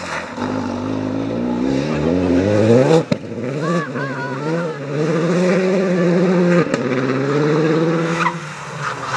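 Rally car engine revving hard under full acceleration, its pitch climbing through the gears. There is a sudden break about three seconds in, then a long high pull, and the engine drops off near the end as the car moves away.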